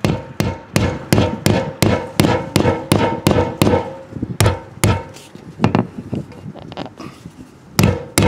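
Hammer tapping push-in plastic anchors through a marker-light fixture into an RV's body, sharp even taps about three a second. The taps pause for a couple of seconds, then start again near the end.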